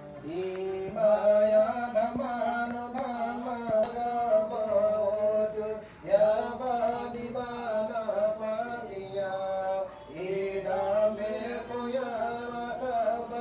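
A man chanting a Buddhist prayer text in a melodic recitation, in long sung phrases with short pauses for breath about six and ten seconds in.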